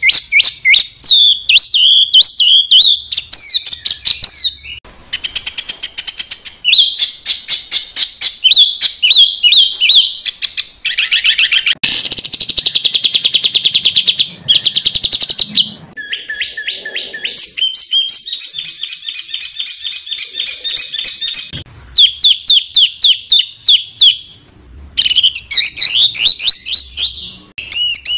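Songbird calls in rapid-fire runs of tightly packed chirps, trills and repeated whistled notes, the 'tembakan' phrases of a masteran track used to tutor cage songbirds. The pattern switches abruptly every few seconds, with brief pauses, as one spliced call gives way to the next.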